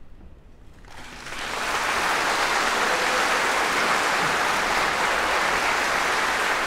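Audience applauding, starting about a second in and quickly building to a steady level.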